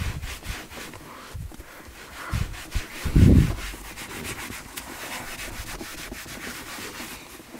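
Cloth towel rubbing shoe polish into a leather car armrest in quick, repeated scrubbing strokes, applying a second coat. A dull low thump about three seconds in.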